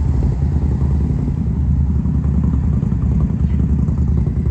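A vehicle engine running steadily, a constant low rumble.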